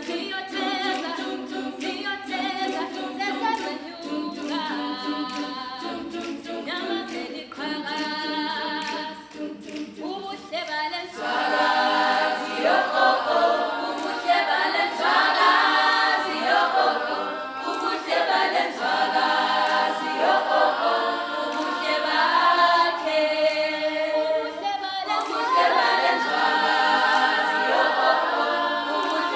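Girls' a cappella group singing unaccompanied in several voice parts. It begins with a quieter rhythmic passage, then about eleven seconds in the full group comes in louder with the melody.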